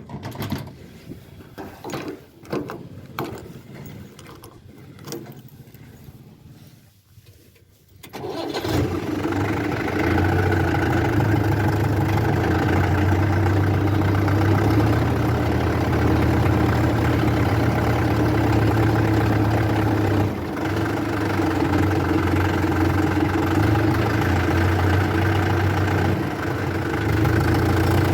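A few scattered knocks and clicks, then about eight seconds in a diesel engine starts and settles into a steady run.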